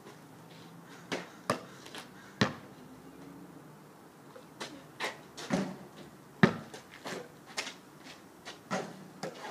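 Basketball bouncing on a paved driveway as it is dribbled: about a dozen sharp bounces at uneven intervals, a few in the first couple of seconds and a longer run from about the middle to the end.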